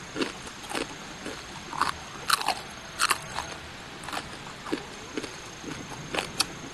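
Crunching bites and chewing of a thin sheet of crispy, oil-soaked rice crust (guoba): irregular sharp crunches about every half second.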